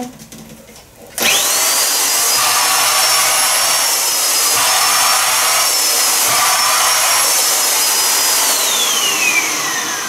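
Handheld unit of a Kitfort KT-581 vertical vacuum cleaner with its narrow nozzle fitted, switched on about a second in. Its motor whine climbs quickly and then runs steadily with a rush of air as it vacuums. Near the end it is switched off, and the whine falls away as the motor spins down.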